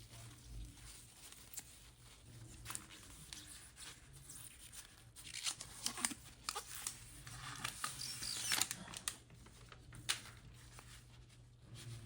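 Hands handling and tearing packaging, crinkling and tearing with scattered small clicks, busiest in the middle few seconds, over a faint steady low hum.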